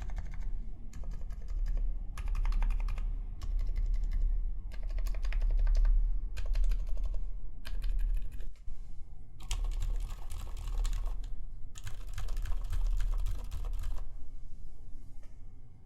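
Typing on a custom mechanical keyboard with silenced MX Zilent switches (Cherry MX Silent Black stems in Zealio housings, 68 g springs, lubed) in a polycarbonate plate, under GMK keycaps. The keystrokes come in quick runs of a second or so, separated by short pauses.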